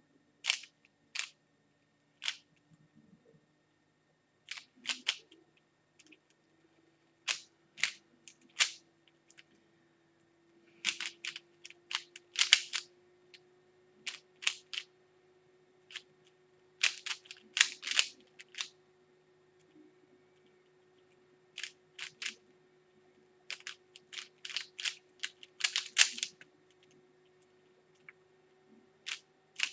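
3x3 Rubik's Cube being turned fast in a timed speed solve: bursts of sharp plastic clicks as the layers snap round, with short pauses between bursts.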